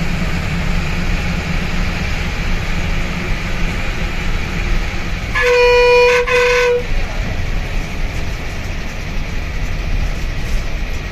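Bus engine and road noise heard from the driver's cabin, steady throughout, with the bus's horn sounding two blasts, one right after the other, about halfway through.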